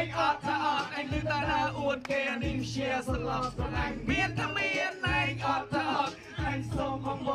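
A man singing into a microphone over backing music with a steady beat.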